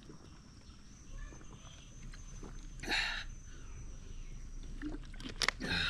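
A man drinking from a plastic water bottle: swallowing, a short breathy sound about three seconds in, and a few sharp crackles near the end. A faint steady high-pitched tone runs underneath until near the end.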